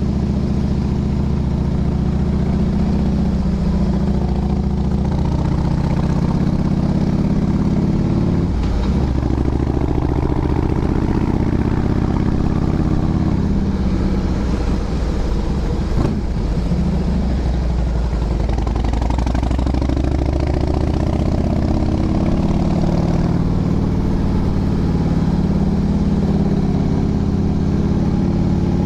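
Motorcycle engine running under way on a mountain road climb, steady and loud. Its pitch drops and picks up again about a third of the way in, and again around the middle.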